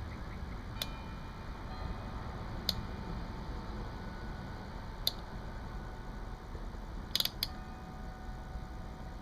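A few sharp, separate clicks and taps, about five in all with a quick cluster about seven seconds in, over a steady low background rumble, typical of handling small hard parts such as tester probes and a switch.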